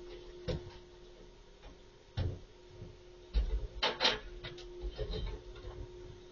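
Rear-loader garbage truck running with a steady hum while wheeled carts are tipped into its hopper: scattered knocks and clatters, the loudest burst of clatter about three and a half to four seconds in.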